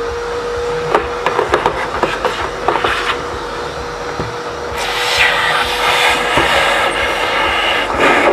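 A vacuum cleaner runs with a steady motor tone while its nozzle knocks and scrapes against the plastic parts of a Saeco Minuto coffee machine as the machine is cleaned out. The rushing suction noise swells about five seconds in, as the nozzle is pushed into the machine.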